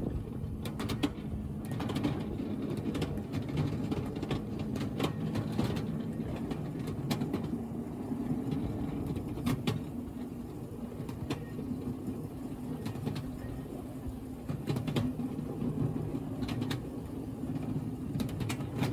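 Ride-on miniature railway train rolling along the track: a steady low rumble from the wheels, with irregular sharp clicks as they pass over the rail joints.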